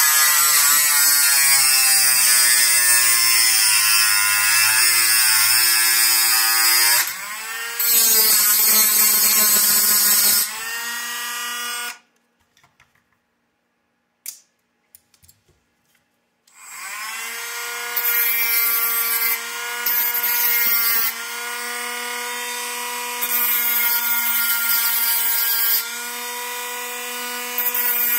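Dremel rotary tool with a cutoff wheel cutting the end off a metal RC sway bar rod: a high motor whine with a grinding hiss while the wheel bites, its pitch sagging under load. It stops for a few seconds midway, then runs again with the grinding coming and going.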